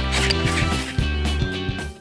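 Background music with a steady beat and a bass line, fading out near the end.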